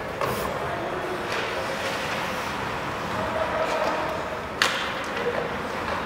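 Ice hockey play in an indoor rink: skates and sticks on the ice over the echoing hall's steady noise, with one sharp crack from the play a little past halfway through.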